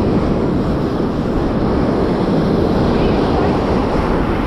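Steady rushing noise of wind buffeting the microphone, mixed with ocean surf.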